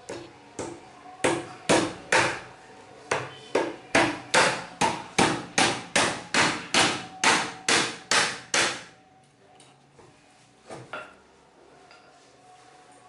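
A nail is driven into the wooden keyboard stand by striking it with an iron rod used as a hammer. About twenty sharp knocks come at a steady two to three a second and stop about nine seconds in, then two quick knocks follow near the end.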